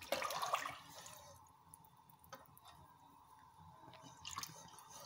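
Wooden spatula stirring water and moong dal in a pressure cooker pot: the water sloshes loudest in the first second, then the stirring goes on faintly, with a light tap a little over two seconds in.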